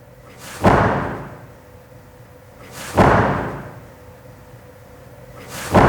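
Three foley impact hits made with everyday objects, about two and a half seconds apart. Each is a quick swish followed by a heavy hit that fades out over about a second.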